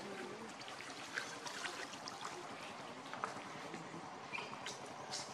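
Water splashing and sloshing as a macaque swims with her baby clinging to her back, with small irregular splashes throughout.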